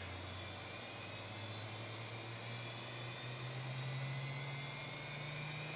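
Stepper motor accelerating under a smooth programmed ramp from a TRM SMC motion controller: a high whine climbing steadily in pitch as the step rate rises toward tens of kilohertz, with a faint low hum rising along with it.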